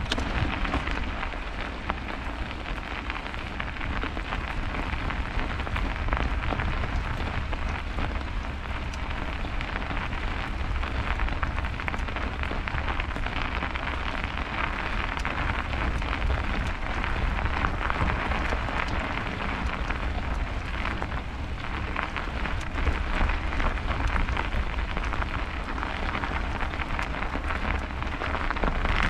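Steady rushing noise of a bicycle ride in snow: tyres rolling over a snowy road with a dense fine crackle, and low wind rumble on the microphone.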